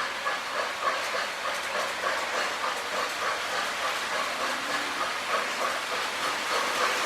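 Model steam locomotive's sound system chuffing with a steady rhythm of hissing puffs, about two or three a second, thin and without bass as from a small onboard speaker.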